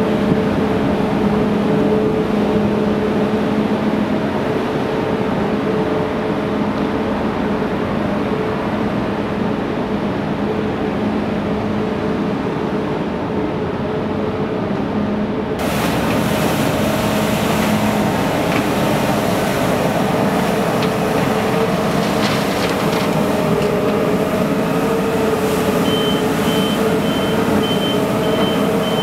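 Heavy diesel vehicle engines idling with a steady hum. Then a compact street sweeper runs with its rotating brushes scraping the road, and a reversing beeper pulses near the end.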